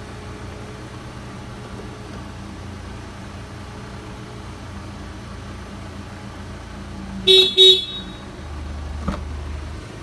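A car alarm gives two short toots in quick succession, the signal that the car has unlocked as the phone is recognised over Bluetooth. The car's engine idles steadily underneath, and a single click comes near the end.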